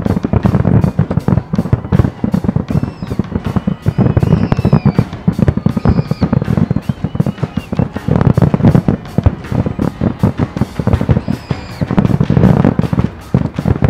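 Aerial fireworks bursting in rapid succession: a dense, continuous run of bangs and crackles, heaviest about a second in, around eight seconds in and near the end.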